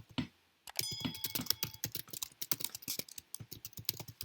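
Fast typing on a computer keyboard: a quick run of key clicks that starts a little under a second in.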